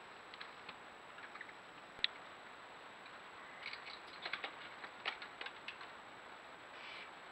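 Barn owl's claws clicking and scraping on the wooden nest box as it lands on the landing board and hops back up: a run of quick, sharp ticks in the second half, after a single louder click about two seconds in, over a steady hiss.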